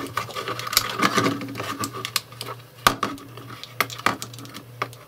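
Irregular small clicks and taps as a 9-volt battery's metal snap connector is pressed onto its terminals and handled against the plastic casing of a handheld ultrasonic dog repeller, over a low steady hum.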